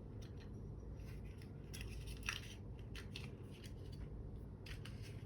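Faint clicks and light scraping of fingers working to pry a small nawa-alloy amulet medal loose, over a low steady hum.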